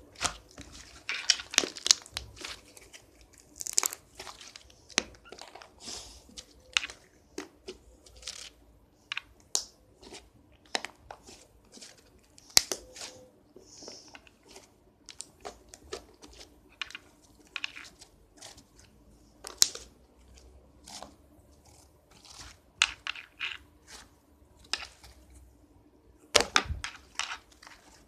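Slime being squeezed and stretched by hand, giving irregular sharp crackles and pops, several a second.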